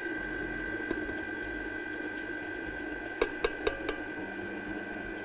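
Electric stand mixer running steadily with a dough hook, a constant motor whine. Four sharp clicks or taps come in quick succession about three seconds in.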